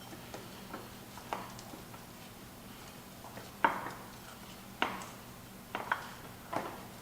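Steel pry bar knocking and clinking against the metal sprocket and track frame of a tracked stump grinder as the track is levered off, a series of separate sharp knocks with a short ring, the louder ones in the second half.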